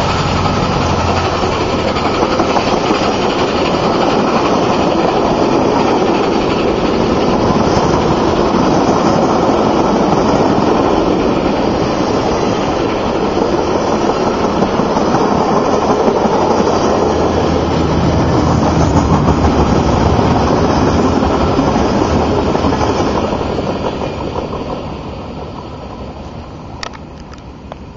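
Steel wheels of a string of passenger railroad cars rolling past at speed, a steady rumble and clatter. It fades away over the last few seconds as the end of the train goes by.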